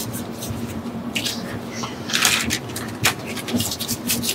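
Handling noises from work at a sink: short scrapes and rustles, with a sharp click about three seconds in, over a steady low hum.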